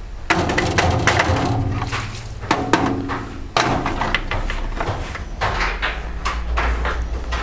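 Plastic chainsaw starter cover knocking and scraping against a perforated metal parts-washer basket as it is handled and lifted out: a run of irregular clatters and knocks, with a steady low hum underneath.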